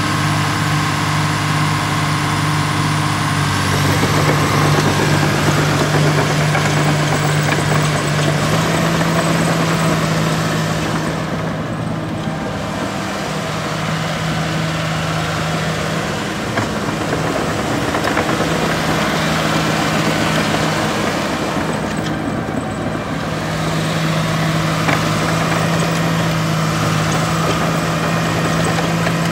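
Caterpillar D5M crawler dozer's diesel engine running steadily, its engine speed stepping up a few seconds in and again a few seconds later.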